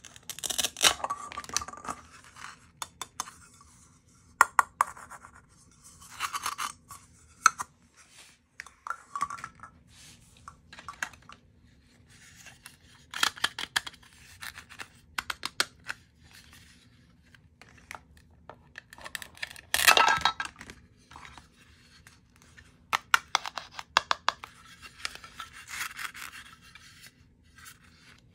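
Plastic toy fruit being handled and cut apart with a plastic toy knife: bouts of scratchy rasping as the hook-and-loop joined pieces pull apart, with plastic clicks and rubbing in between. The loudest rasp comes about twenty seconds in.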